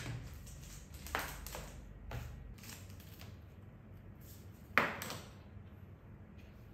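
Small objects and paper packets being set down and slid on a wooden desktop: a few light taps and clicks, the sharpest one about three-quarters of the way in.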